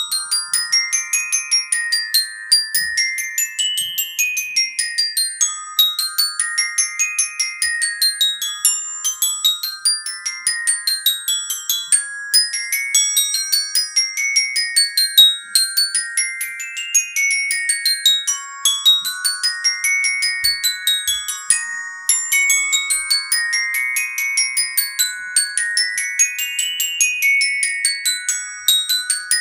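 Glockenspiel played with mallets: a fast étude of quick ringing notes in runs that climb and fall again every two to three seconds.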